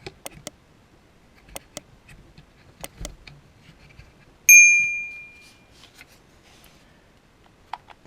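Light clicks of the Parkside PHKSA 12 A1 mini circular saw being handled at its depth-of-cut adjustment, then about halfway through a single sharp metallic ping that rings on for about a second.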